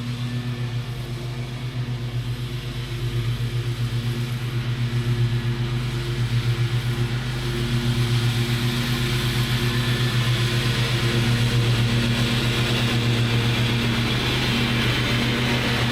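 Lawn mower engine running steadily at a constant speed, with a rushing noise that grows louder about halfway through.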